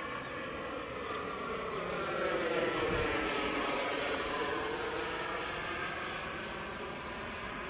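E-flite F/A-18D model jet's electric ducted fan whining as it flies past, growing louder to a peak a few seconds in and then fading as it moves away, its pitch sliding with the pass.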